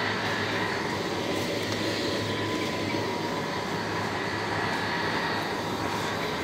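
Steady whirring rush of supermarket refrigeration and ventilation: the fans and compressors of open refrigerated display cases, with a low hum and a few faint whining tones under the rush of air.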